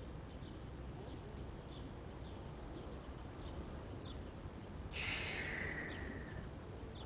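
Open-air ambience: a steady low background with small birds chirping briefly and repeatedly, and a hissing rush about five seconds in that fades over a second and a half.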